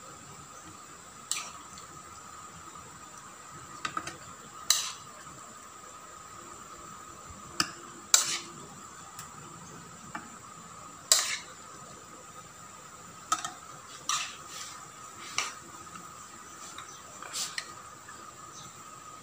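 Metal spoon clinking and tapping against plastic bowls as diced raw chicken is spooned into a food chopper: about a dozen short, sharp clicks at irregular intervals.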